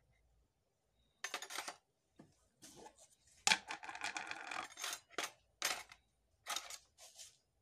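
Clear plastic tub being handled: a run of plastic scrapes and clacks, with a longer scraping, faintly ringing stretch about halfway through and a few sharp knocks near the end.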